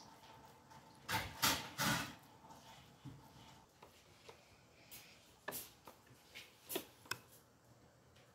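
A pastry brush swishing over a thin sheet of dough in a baking pan, three quick strokes about a second in. In the second half, a few light sharp clicks of a metal spoon against a glass dish of ground nuts.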